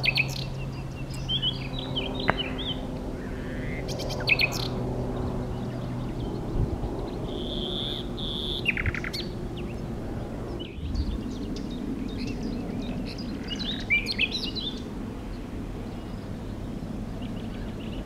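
Common nightingale singing its spring territorial song: separate varied phrases of quick chirps and trills with pauses between them, including a held whistle followed by a rapid run of clicks about eight seconds in, over a low steady background hum.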